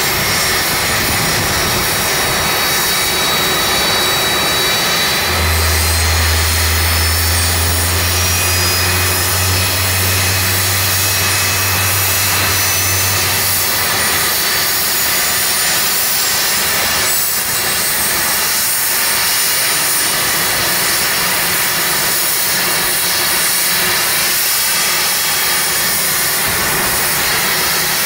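MH-60S Seahawk helicopter's twin turboshaft engines running with a loud, steady turbine whine that drifts slowly upward in pitch. A deep steady hum joins about five seconds in and stops after about eight seconds.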